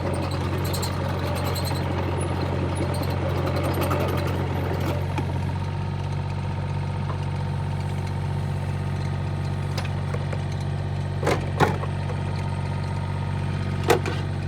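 Excavator engine running steadily at a constant speed, with a few short knocks about eleven and fourteen seconds in.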